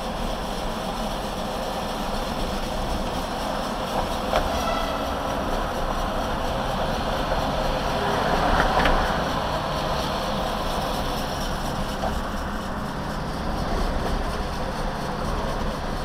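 Road and running noise of a moving vehicle heard from inside the cabin as it drives over rough, patched bridge pavement. There are a few light knocks about four seconds in and a swell in loudness about halfway through.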